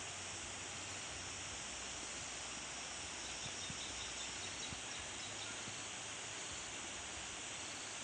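Steady outdoor countryside ambience: an even hiss, with a few faint high chirps about three to five seconds in.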